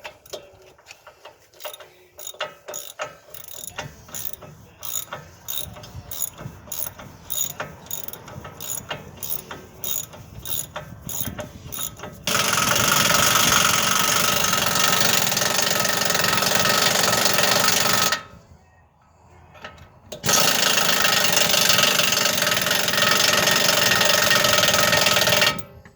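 A socket ratchet clicking rapidly as a nut is worked loose, then an air tool running loudly and steadily in two long spells with a short pause between.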